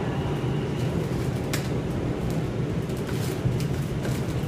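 Interior of an R142 subway car running along the track: a steady low rumble with a few brief sharp clicks, the clearest about a second and a half in.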